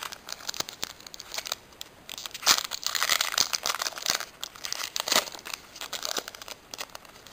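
Foil wrapper of a Pokémon booster pack crinkling and tearing as it is ripped open by hand, a run of irregular crackles with the sharpest about two and a half and five seconds in.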